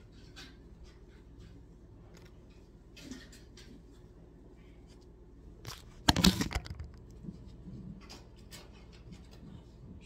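Scattered small clicks and rustles of a phone camera being handled, with one loud clatter about six seconds in as it swings and is moved.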